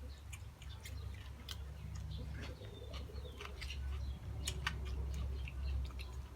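Close-up chewing of crisp grilled frog, with many sharp crunching clicks, over a steady low hum.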